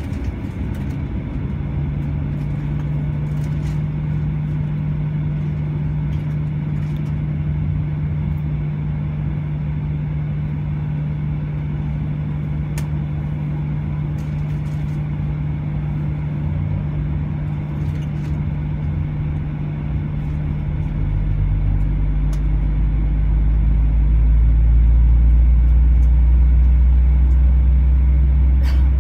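Steady low hum inside the cabin of a Boeing 737-800 standing at the gate. A deeper rumble sets in about 21 seconds in and grows louder toward the end, with a few faint clicks.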